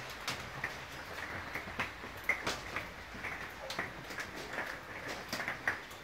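Faint, scattered short bird chirps and soft clicks from parrots in an aviary, with no steady sound.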